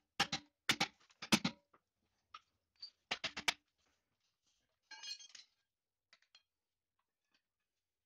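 Quick bursts of metal taps on the steel shell of a large Copeland scroll compressor, struck to loosen the cut shell halves, with a ringing metallic clatter about five seconds in.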